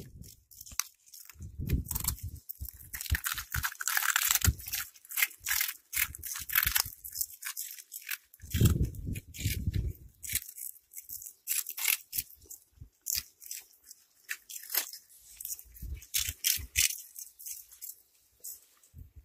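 Cats crunching and chewing crispy puffed snack balls: a rapid, irregular crackle of bites, with a couple of low thumps about two seconds in and about nine seconds in.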